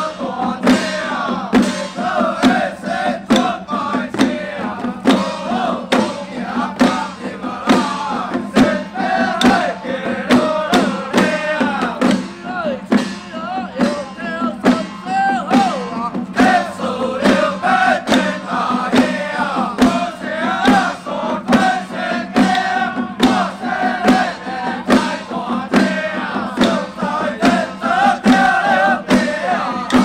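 A group of men chanting together over a steady beat of hand-held drums, with a constant low hum underneath.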